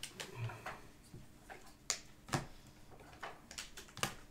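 Glossy football trading cards being handled: a few faint, irregular clicks and taps as cards are flipped through and set down.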